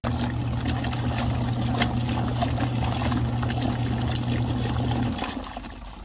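Portable twin-tub washing machine agitating a load of clothes in soapy water: a steady motor hum under water swishing in the wash tub. The hum stops about five seconds in.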